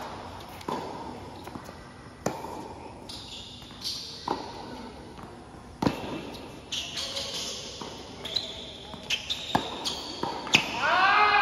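Tennis rally on a hard court: sharp racket strikes and ball bounces, about one every second or two. Near the end come a few short, curving squeaks of tennis shoes on the court.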